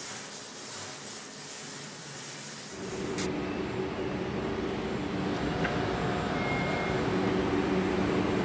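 Hiss of a steel shaft being ground on a cylindrical grinder under flowing coolant, cutting off with a click about three seconds in. Then a steady hum of machine-shop machinery with a few steady tones.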